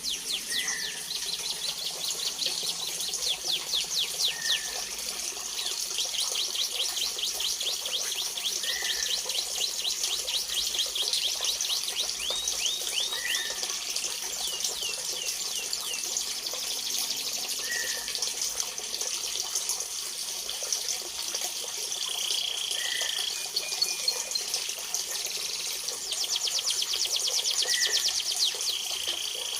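Small songbirds, bar-winged prinias (ciblek kristal), calling in an aviary: long runs of rapid, high trills, with a short lower chirp repeating about every four seconds. A steady hiss runs underneath.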